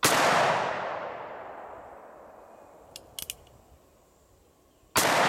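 A .357 Magnum single-action revolver with a short 4.75-inch barrel fired twice, about five seconds apart, each shot followed by an echo that fades away over about three seconds. A few short clicks about three seconds in, as the hammer is cocked for the next shot.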